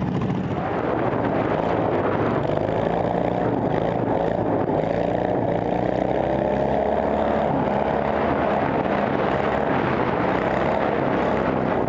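Racing ride-on lawn mower engine running hard, heard close up from the driver's seat. Its pitch rises and falls a little with the throttle.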